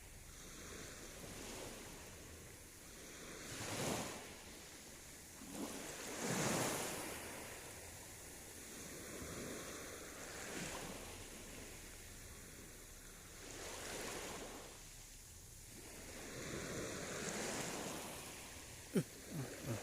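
Small sea waves washing in at the shoreline, each swell rising and fading every few seconds. A sharp click near the end.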